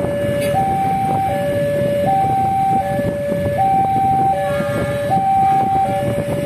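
Railway level-crossing alarm sounding its two-tone electronic warning, a higher and a lower tone taking turns about every three-quarters of a second while a train passes. Beneath it is the rumble of the freight train's wagons rolling along the rails.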